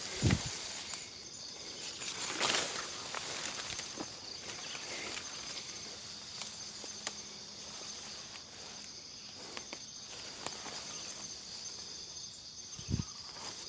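Steady high-pitched insect chorus in forest, with footsteps rustling through undergrowth: a low thump about 0.3 s in, a rustle about two and a half seconds in, and another thump near the end.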